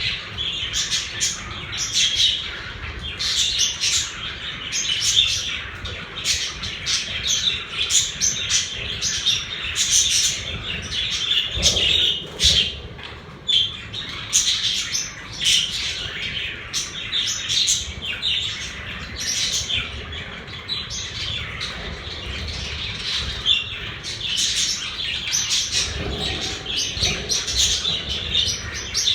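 Pet budgerigars chirping and chattering without a break, many short overlapping calls, with the odd louder squawk.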